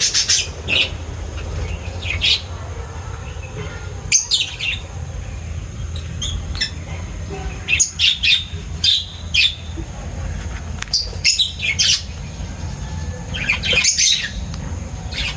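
Pet birds chirping and squawking in short clusters of sharp, high calls that come every few seconds, over a steady low hum.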